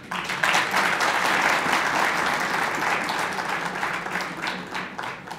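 Audience applauding: a burst of clapping that starts suddenly, holds for about four seconds and then fades out near the end.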